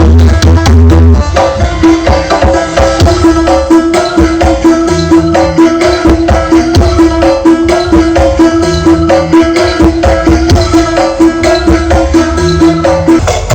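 Very loud drum-driven music with heavy bass and a repeating melody, played at high volume through a carnival sound system.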